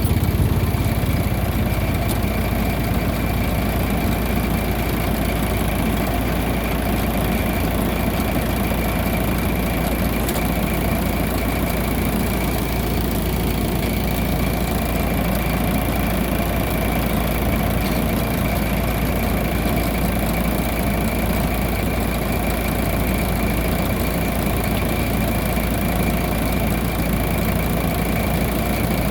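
Rice combine harvester running, its engine a steady drone with a thin high whine over it.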